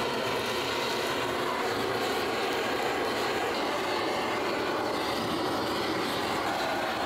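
Gas blowtorch burning steadily with a constant rushing flame, played over pork skin to singe it.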